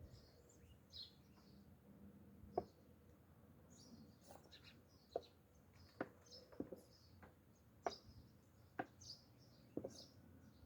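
Faint small birds chirping, with a few sharp light clicks or taps scattered through it.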